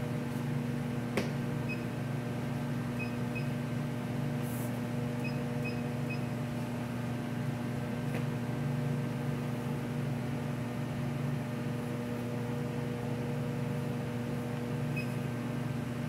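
Steady low hum of chiller plant room machinery, with a few faint, short, high beeps, some in quick pairs, and a single click about a second in.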